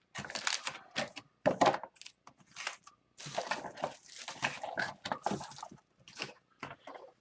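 Crinkling and tearing of a hockey card pack's wrapper as it is torn open, in irregular crackling bursts.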